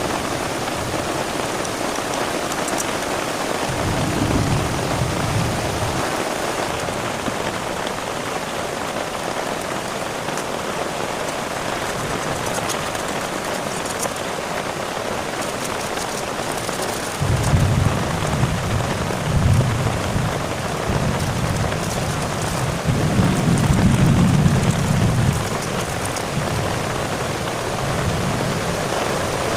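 Steady heavy rain, with deep rumbles of thunder about four seconds in and again, louder and longer, in the second half.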